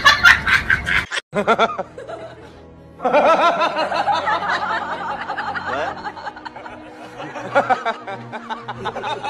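A quick run of snickering laughter in the first second, then a background music track with a wavering, chirpy melody.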